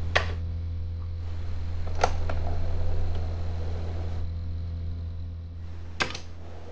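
Commodore 64 loading from a Datasette tape deck: a key click just after the start (RETURN on the LOAD command), then about two seconds in the Datasette's PLAY key clunks down and the tape motor starts whirring. Another sharp click about six seconds in, over a steady low hum.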